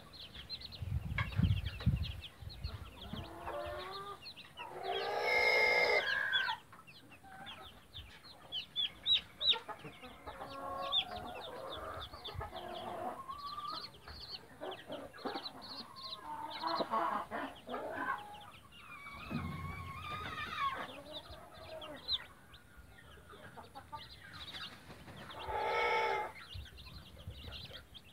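Chicks peeping constantly around a mother hen that clucks softly to them, with a rooster crowing twice, about five seconds in and again near the end. A few low thuds near the start.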